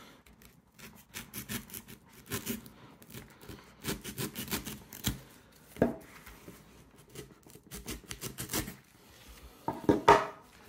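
Serrated knife blade of a multi-tool sawing through the loose ends of manila rope in clusters of short, rasping strokes. Near the end there is a louder knock against the wooden table.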